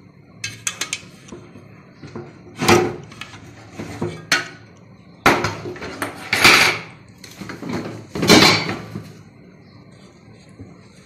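Metal utensils and a metal cooking pot clattering: a few quick clicks about half a second in, then a handful of louder scrapes and knocks over the next several seconds.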